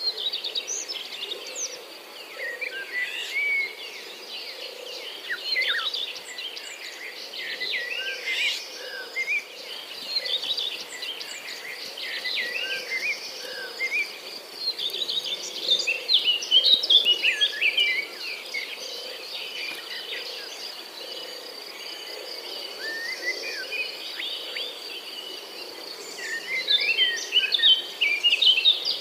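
Morning birdsong: many birds chirping and calling in quick short notes, busiest and loudest in two stretches, one past the middle and one near the end. Underneath runs a steady high-pitched insect drone.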